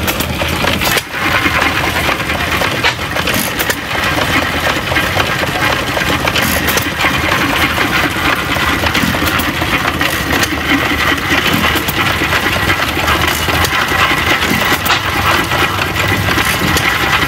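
Antique hit-and-miss engine running with a steady mechanical clatter, with a few sharp clicks over it.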